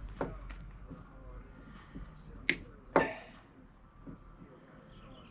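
Snips cutting through wires in a Jeep door's wiring: a few sharp snaps, the two loudest about half a second apart near the middle.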